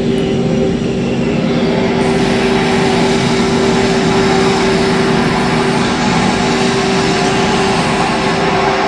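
Borehole water pump running, a steady mechanical drone with an even hum.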